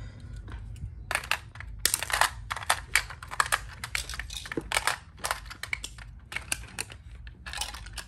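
Batteries being pressed into a toy police car's plastic battery compartment: an irregular run of small plastic clicks, taps and rattles.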